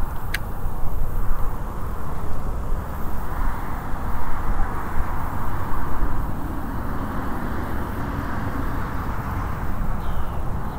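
Steady rumble and hiss of highway traffic, with a single short click near the start.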